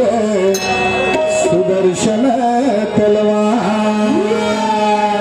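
Live devotional bhajan music: a harmonium holding a steady drone under a melody, with a man singing and a few drum strokes.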